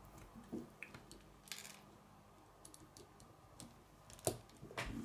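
Faint, scattered plastic clicks of Lego bricks being handled and pressed onto a small brick-built figure, with a couple of sharper clicks near the end.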